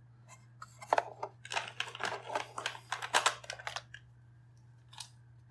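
Cheap plastic kitchen timer being gripped and pried at by hand to pop its cover off: a run of irregular plastic clicks and scrapes from about one to four seconds in, and one more click near the end.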